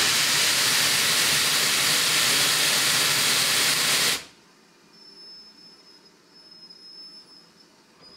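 Steam hissing loudly as it blows out from beside the cylinder of a Great Western tank engine, from what look like its open cylinder drain cocks. The hiss cuts off suddenly about four seconds in, leaving only quiet with faint high thin tones.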